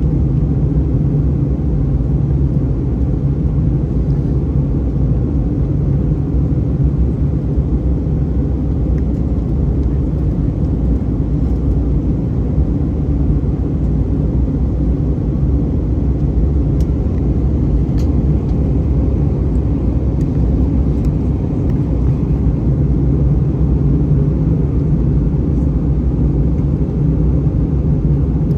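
Steady low rumble of an Airbus A319-131 in flight, heard from inside the cabin: engine and airflow noise.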